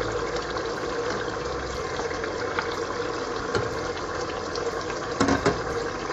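Tomato and red palm-oil sauce sizzling and bubbling in a stainless steel pot on medium heat, with a steady hum underneath. A wooden spoon stirring the sauce knocks against the pot two or three times about five seconds in.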